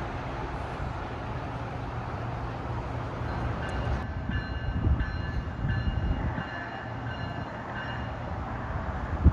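Passenger train rumbling along the track. From about three seconds in, a high squeal keeps cutting in and out for several seconds.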